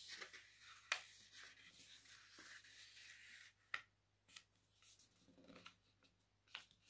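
A sheet of paper being handled and folded by hand: faint rustling, with a sharp crackle of the paper about a second in and another near four seconds in, then quieter with a few light taps as the crease is pressed down.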